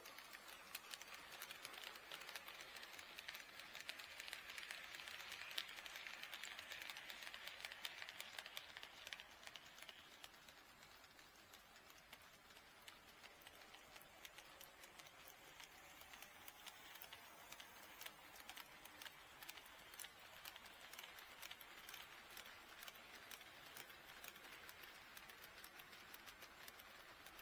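HO scale model train running on the track, its wheels clicking rapidly over the rail joints with a soft running hiss. It is louder twice, early on and again in the last third, as the train comes past.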